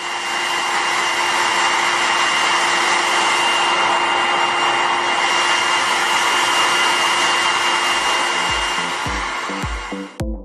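Hair dryer running steadily, a loud blowing rush with a steady whine from its fan motor, switched off near the end. Electronic music with a steady beat fades in over the last couple of seconds.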